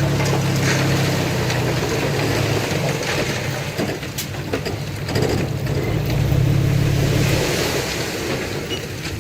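Diesel engine of heavy earthmoving machinery running under working load; its note eases off about three seconds in and builds again around six seconds, with a few faint knocks.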